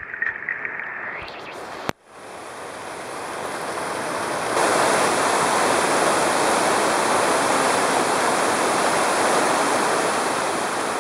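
Brief gurgling heard underwater beneath a jitterbug lure. It is cut off about two seconds in, and a steady rushing hiss follows that swells a few seconds later.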